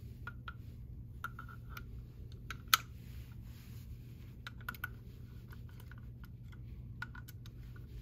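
Small metal clicks and taps as a crimp-tool turret head is fitted onto a pneumatic crimp tool and fastened with a screwdriver, with one sharper click about three seconds in. A low steady hum sits underneath.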